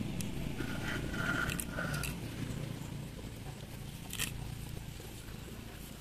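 Herb stems being cut and handled, with a few small crisp snips and crunches, over a low steady background rumble.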